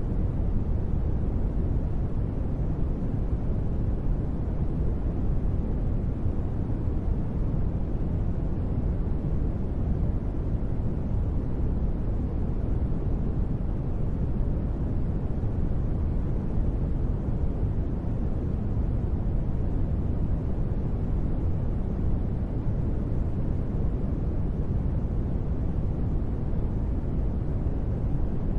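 Steady, unchanging ambient noise track of deep, rumbling noise, mostly bass with little hiss, used as a calming space-ambience background.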